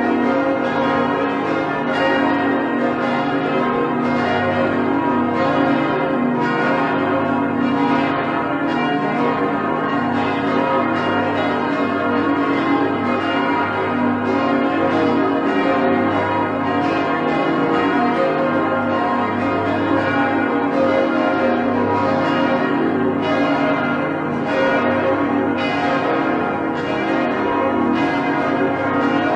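Church bells ringing in a continuous peal: a large swinging bell struck over and over, its ringing overlapping without a break.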